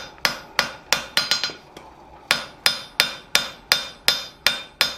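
Blacksmith's hand hammer striking a hot steel bar on an anvil, about three blows a second, each with a metallic ring. There is a short pause about two seconds in before the hammering resumes.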